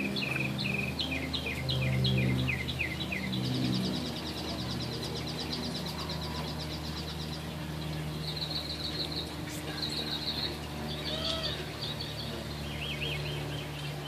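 Birds chirping and singing: a run of repeated chirps falling in pitch, then a fast high trill for a few seconds, then short chirping phrases, over a steady low hum.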